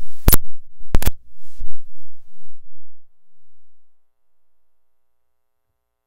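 Loud pops and crackle from a Lewitt LCT 840 tube microphone as its power supply is switched off while still connected to the audio interface. There is a sharp pop, then a double pop about a second in, then a low hum that fades out about three seconds in. This is the power-down popping that the mic is being tested for.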